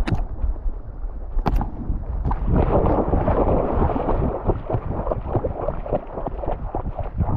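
Water sloshing and splashing right at a GoPro worn by a dog moving through a river: a dense run of small irregular splashes over a low rumble of water and wind on the microphone.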